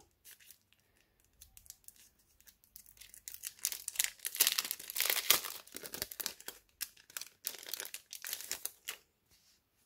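Packaging crinkling and tearing as a small stack of designer paper cards is unwrapped by hand: a few light rustles at first, then a run of crinkling that is loudest in the middle and stops near the end.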